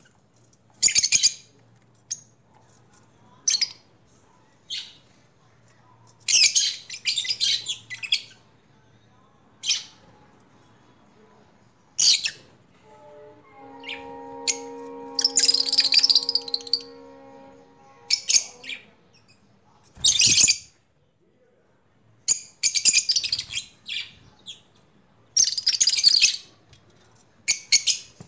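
Birds chirping and squawking in short, loud bursts about every second or two. A steady tone of several notes sounds for about four seconds midway.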